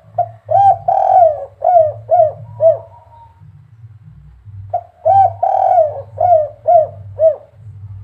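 Spotted dove cooing twice. Each phrase is a short note, a longer drawn-out coo, then three short clipped 'kuk' notes: the three-note 'kuk 3' ending that dove keepers prize. A steady low hum runs underneath.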